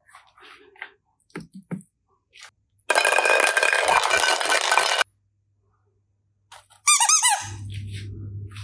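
Squeaking: a loud, dense squeaky noise for about two seconds that starts and stops abruptly, then a quick run of short rising squeaks about seven seconds in, followed by a steady low hum.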